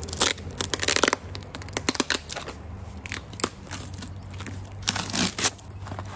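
Cardboard shipping box being pulled open by hand, the cardboard and its tape tearing and crinkling: a quick run of sharp crackles in the first second, then scattered rasps, with another burst about five seconds in.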